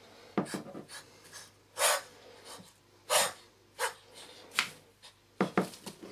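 Indochinese spitting cobra hissing in several short, sharp breaths while it is offered food with tongs. Sharper clicks and rustles of tongs and shredded paper in a plastic tub come near the start and near the end.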